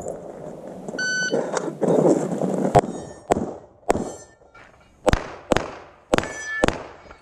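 Shot-timer start beep about a second in, then seven pistol shots fired in quick pairs and singles at steel targets, with the steel plates ringing after some hits.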